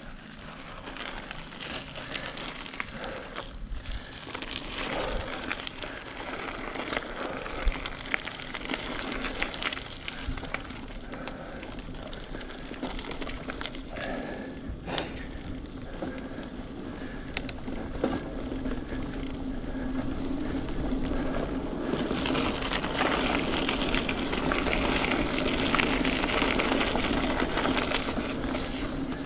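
Mountain bike being ridden on a dirt trail: tyres rolling over the ground with frequent sharp clicks and rattles from the bike. The noise grows louder in the last quarter.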